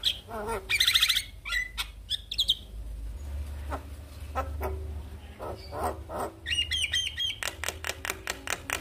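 Javan myna (jalak kebo) singing a fast, varied song: rapid clicking notes, a loud rasping call about a second in, and warbling whistled notes near the end.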